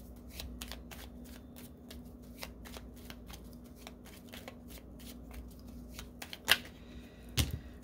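Tarot cards being handled and shuffled: a run of quick, light papery card flicks and snaps, about three a second, with two louder snaps near the end.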